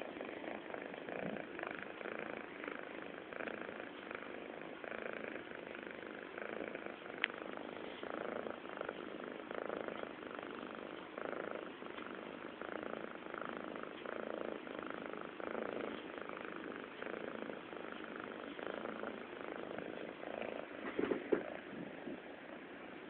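Domestic cat purring loudly and without a break, the purr swelling and fading in a regular rhythm with each breath.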